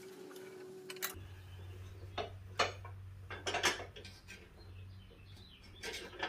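Scattered light metal clinks and taps as the steel idler arm and cable on a riding mower's cutting deck are handled, over a steady low hum.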